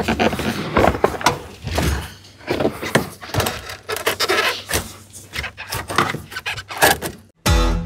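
Irregular scraping and rubbing, with scattered clicks and knocks, as a hand tool works over the cracked vinyl-and-foam dash pad of a Chevy LUV. It cuts off about seven and a half seconds in, and strummed guitar music starts.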